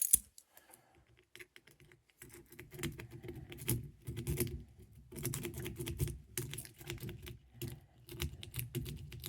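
Jiggler key worked rapidly in the small keyway of a gun trigger lock: metallic clicking and rattling, sparse at first, then dense and continuous from about two seconds in.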